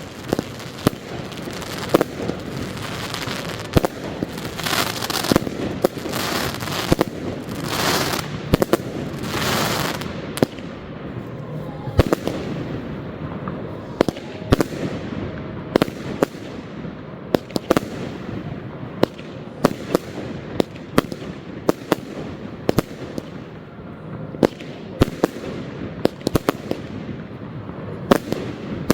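Fireworks display: a rapid, irregular series of sharp aerial shell bangs throughout. In the first ten seconds or so they are joined by a dense hissing, rushing spray that swells several times.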